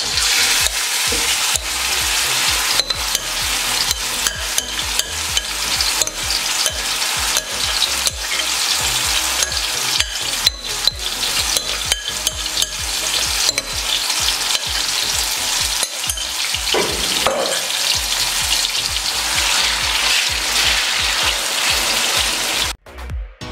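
Marinated chicken sizzling as it fries in hot oil in a pan, with the spoon clicking and scraping against the pan as it is stirred. The sound cuts off suddenly near the end.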